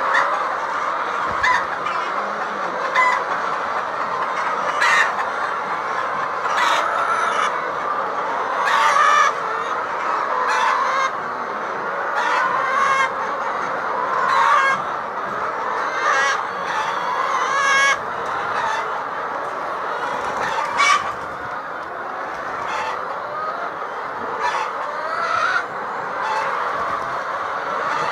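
A large flock of chickens clucking and calling together: a continuous din with frequent short, sharp calls standing out above it.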